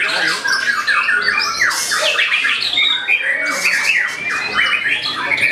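White-rumped shama (murai batu) singing a fast, unbroken run of chattering and whistled phrases, with two brief harsher, noisier notes about two and four seconds in.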